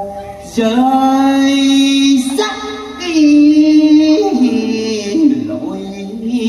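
A woman singing a Vietnamese folk melody in long held notes that step and slide between pitches, starting again about half a second in after a brief pause.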